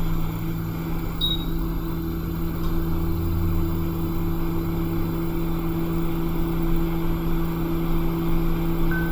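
Hot air rework station blowing steadily onto an iPhone 6S logic board to heat and desolder it: an even rush of air with a constant hum. A short high beep comes about a second in.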